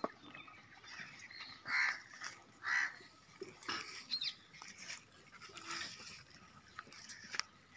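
Doberman puppies squealing in short high calls as they crowd a steel feeding bowl. The two loudest squeals come about two and three seconds in, among scattered clicks.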